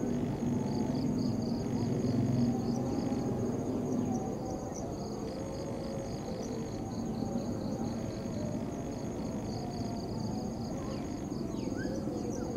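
Insects chirping in rapid, high-pitched pulsing trills that repeat throughout, over a low steady rumble that is a little louder during the first four seconds.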